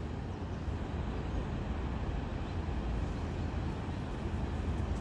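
Steady low rumble of road traffic, with no distinct events.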